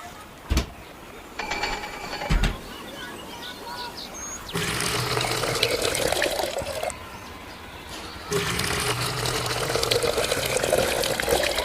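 Small electric water pump running and splashing water, with a steady motor hum under the rush. It starts about four and a half seconds in, cuts out briefly, then starts again. Before it come a few clicks and a short mechanical rattle.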